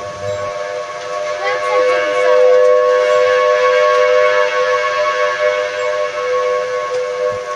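Thunderbolt 1000T outdoor warning sirens sounding a severe-weather warning: a loud, steady chord of several tones. It swells to its loudest two to three seconds in and then slowly eases.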